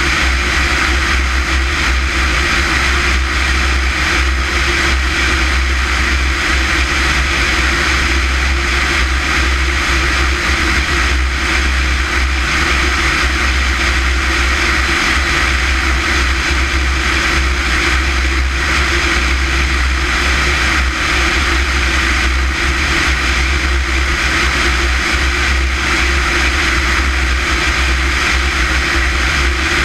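Small propeller airplane in flight: a steady, unchanging drone of engine, propeller and rushing air.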